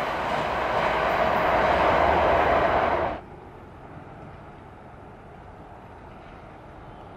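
ED9M suburban electric multiple unit drawing close along the track: a steady, rising noise of wheels on rail and running gear. It cuts off suddenly about three seconds in, leaving a much quieter steady background.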